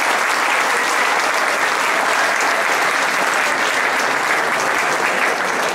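Audience applauding, a dense, steady clapping at the end of a live song.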